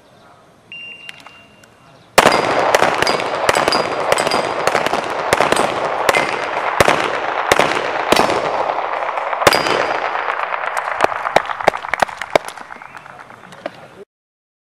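A short electronic start beep, then about two seconds in two handguns open rapid fire at steel plates, a dense run of shots with the plates ringing. The shooting cuts off suddenly near the end.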